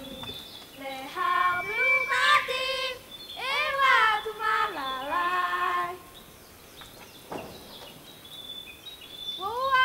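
Children's voices singing in drawn-out phrases, then a pause of about three seconds with a single faint knock, before a voice calls out again near the end.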